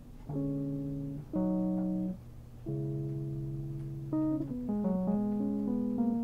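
Vintage electric piano sound played on a keyboard: a few held chords, each lasting about a second, then a quicker run of notes about four seconds in.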